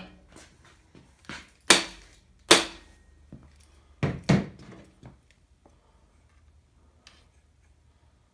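Hammer blows on a bearing driver, driving a new bearing into its bore in the Allis Chalmers engine block: four sharp metal strikes with a few lighter taps around them.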